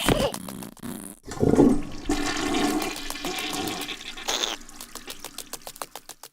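Rushing, swirling water starting about a second in, lasting about three seconds and then tailing off, with clicking sound effects throughout.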